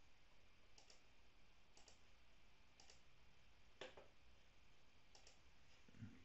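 Faint computer mouse clicks, about five over a few seconds, several heard as quick double ticks.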